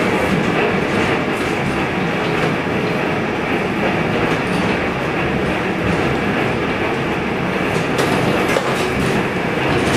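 Interlocking mud brick making machine running with a steady, loud mechanical rattle as soil mix is fed into its hopper, with a couple of sharper knocks near the end.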